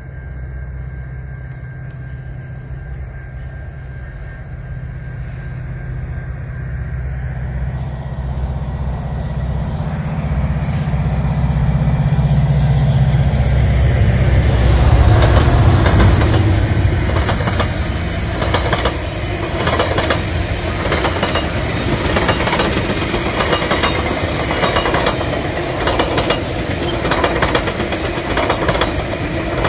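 GO Transit commuter train passing at speed. Its diesel locomotive's rumble builds and peaks about halfway through, then the bilevel coaches' wheels click rhythmically over the rail joints as they go by.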